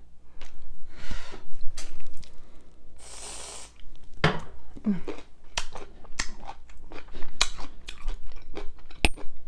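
A short hiss of an aerosol whipped-cream can spraying about three seconds in, then close-up crunchy chewing of a small sour pickle topped with whipped cream, a run of sharp wet crunches.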